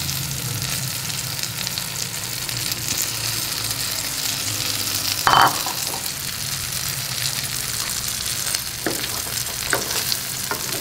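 Eggplant omelette frying in hot oil in a skillet: a steady sizzle as beaten egg is poured over the eggplant, with a short clink about halfway through and a few light spatula taps near the end.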